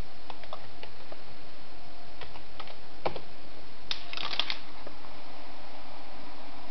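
Computer keyboard keys pressed in an irregular run of clicks, with a quick flurry about four seconds in, over a steady hiss.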